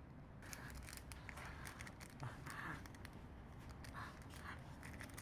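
Faint crinkling and crackling of a small clear plastic bag and a cardboard box being handled in the hands, a quick run of irregular little ticks.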